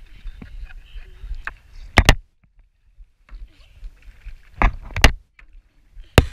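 Sharp knocks on a stand-up paddleboard as it is bumped and handled at the water's edge, picked up loudly by a camera mounted on the board: a pair about two seconds in, another pair a few seconds later and one more near the end. Quieter sloshing of shallow water between the knocks.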